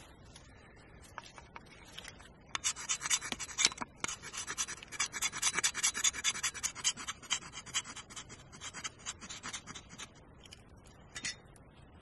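A knife scraping along a split piece of wood in many quick, rasping strokes from about two and a half seconds in until about ten seconds, then one more short scrape near the end.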